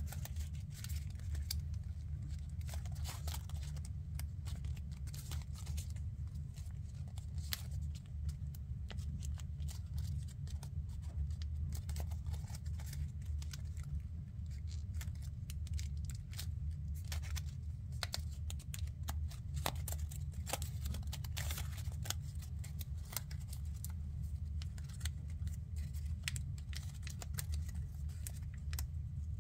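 Sheet of origami paper being folded, pinched and creased by hand, with frequent small crinkles and crackles of the paper. A steady low hum runs underneath.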